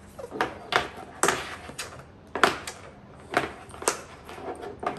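Irregular sharp plastic clicks and knocks from a hard plastic mouse carry case being handled and its side snap latch pried at, the loudest knock about halfway through.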